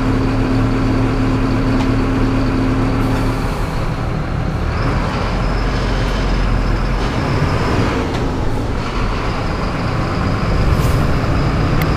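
Mercedes-Benz city bus's diesel engine idling with a steady low hum, then pulling away about three and a half seconds in, heard from the driver's seat over the hiss of rain and wet road.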